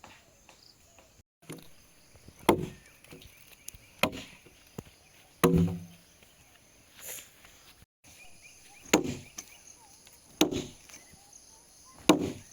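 Repeated heavy blows of a tool striking wood, about one every one and a half seconds.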